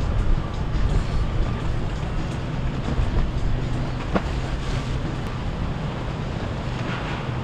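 Motorboat engine running with a low drone over wind and water noise, slowly fading.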